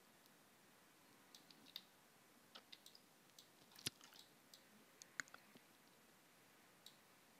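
Faint computer-mouse clicks: a dozen or so short, sharp clicks at uneven intervals, the loudest about four seconds in.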